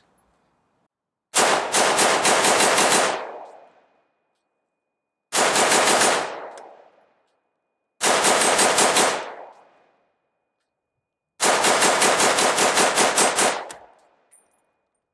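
Geissele Super Duty AR-15 with a flash hider and no muzzle brake, fired semi-automatically in four quick strings of rapid shots at several shots a second. The second and third strings are shorter, and each string trails off in a brief ringing echo.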